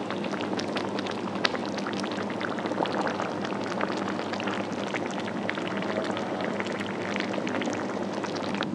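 Pot of mullet rice-noodle soup boiling, a steady crackle of many small bubbles popping, with a steady low hum underneath.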